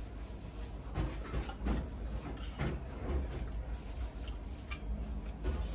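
Scattered light knocks and clicks of cutlery against a plate, a few in the first half and more spaced out later, over a low steady room hum.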